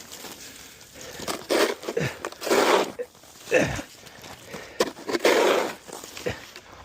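Snow being shovelled: about four scraping, crunching strokes, roughly a second apart, with a few sharp knocks between them.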